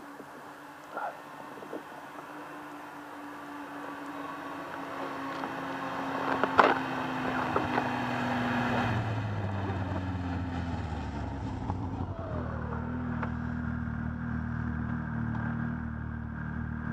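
A snowmobile approaching along the trail, its engine getting steadily louder, then running close by with a deeper tone and its pitch dropping as it slows and pulls up. A single sharp knock sounds about six and a half seconds in.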